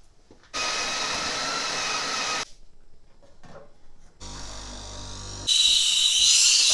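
Espresso machine with a built-in grinder. The grinder runs for about two seconds. After a pause the pump hums briefly, and then the steam wand hisses loudly while milk is frothed.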